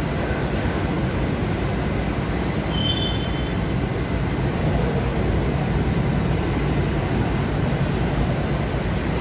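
Steady low hum and rushing noise of woodworking machinery running in a PADE CNC machine shop, with a short electronic beep about three seconds in.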